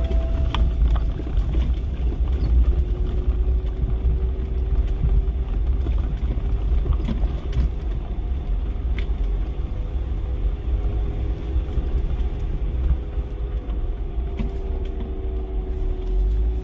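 Vehicle driving slowly over a rough, rocky dirt track, heard from inside the cab: a steady, heavy low rumble with a few small clicks and knocks.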